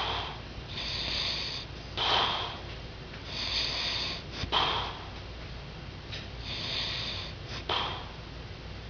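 A man snoring in his sleep, in a slow cycle about every three seconds: a loud, harsh snorting breath, then a softer, hissing breath, about three times over.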